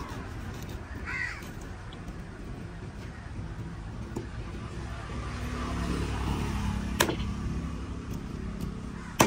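Roadside ambience with a steady low rumble of traffic and a crow cawing about a second in. Two sharp knocks come from the fish-cutting block, about seven and nine seconds in.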